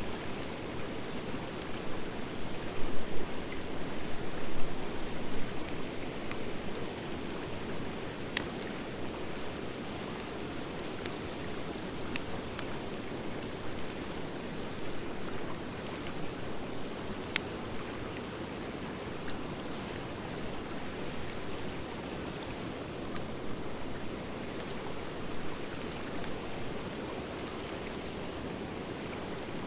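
Campfire of driftwood and dry hardwood logs burning: a steady rush of flame with scattered sharp crackles and pops, louder and busier a few seconds in.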